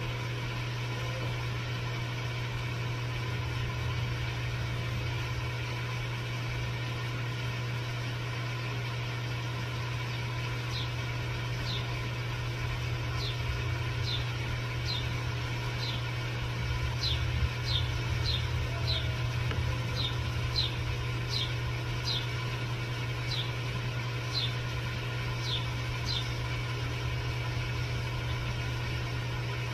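Steady low machine hum, with a run of short, high chirps, each falling in pitch, repeated about twenty times through the middle stretch.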